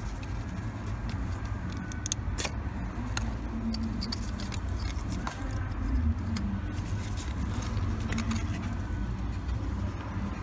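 Scattered light metallic clicks and taps of a screwdriver working the retaining screw of a crankshaft position sensor, over a steady low rumble.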